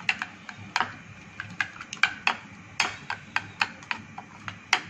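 Metal spoon clicking against a plate while stirring a thick, wet spice paste, with sharp, irregular clicks about four times a second.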